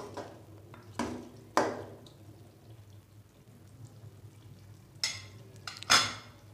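A metal spoon stirring thick korma gravy in a metal pot, knocking sharply against the pot four times, each strike ringing briefly: twice about a second in, twice near the end.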